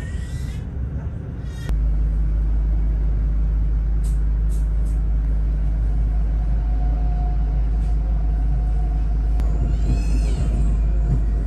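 Passenger train running slowly through a rail yard, heard from inside the carriage: a loud, steady low rumble that comes in suddenly about two seconds in, with a short high squeal near the end.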